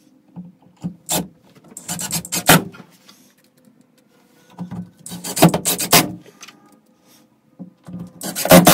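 Cordless drill driving screws through a flanged fitting and filler plate into a ceiling, in about four short runs with pauses between.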